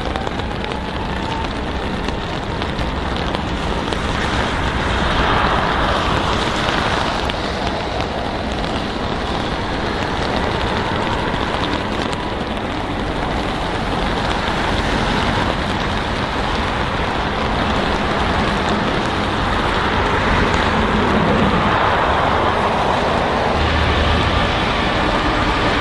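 Airbus A380's Rolls-Royce Trent 900 jet engines running as the aircraft taxis on a wet runway, a steady noisy rumble that swells twice. Near the end a rising whine comes in.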